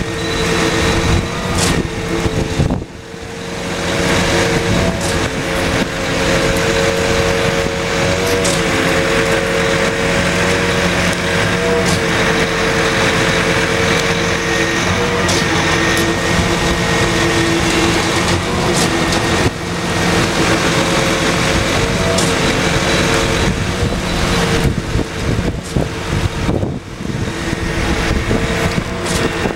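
Concrete pump running steadily as it pushes concrete out through its delivery hose, a loud, even engine drone. It dips briefly about three seconds in.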